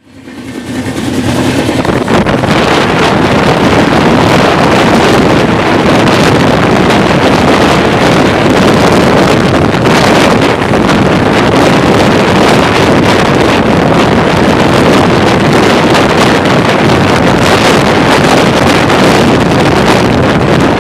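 Loud, steady rushing of wind buffeting the microphone over the rumble of a moving vehicle, fading in over the first two seconds.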